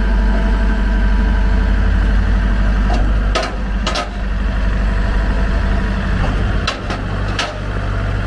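A vehicle engine idling steadily, with several short sharp clicks or knocks over it.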